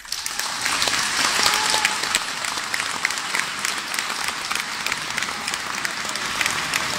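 Large concert-hall audience applauding: dense clapping that starts suddenly and keeps on steadily, greeting the end of the performance.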